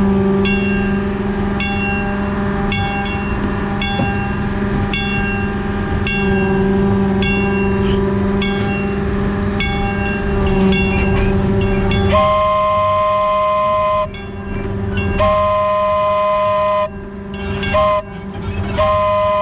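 Diesel-hydraulic locomotive running steadily with a bell ringing about once a second. Then the locomotive's horn sounds in two-tone blasts, long, long, short, long: the grade-crossing signal.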